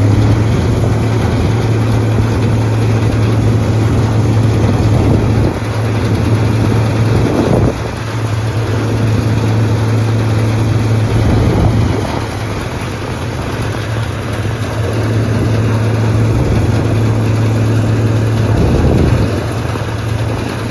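Combine harvester running with a steady, loud low hum, its level dipping slightly now and then.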